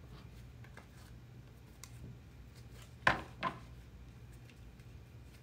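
Tarot cards being shuffled by hand: faint taps and slides of the cards, then two short, sharp card sounds a little after three seconds in.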